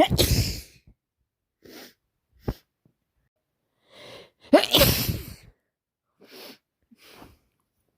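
A woman with a head cold sneezes twice, each loud sneeze led by a sharp in-breath, the first at the very start and the second about halfway through. Short, quieter breaths come between and after them.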